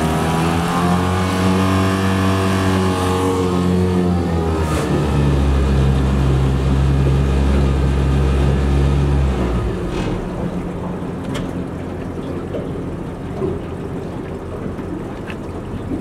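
Mercury outboard motor running under way, its pitch shifting with the throttle, then throttled back about nine seconds in so that the engine note drops away, leaving wind and water noise.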